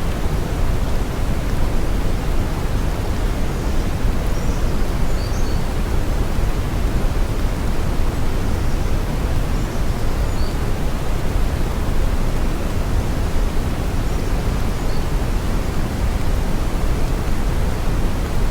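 Steady brown noise: an even, unchanging deep hiss weighted heavily toward the low end and growing fainter toward the top.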